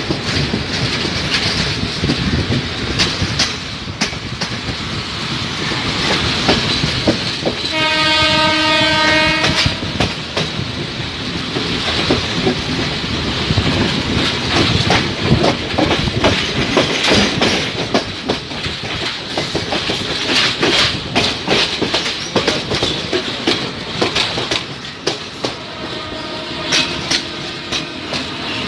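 Passenger train running, heard from an open carriage doorway: a steady rumble with wheels clacking over the rail joints. About eight seconds in, the train's horn sounds once for about a second and a half, and a fainter tone comes in near the end.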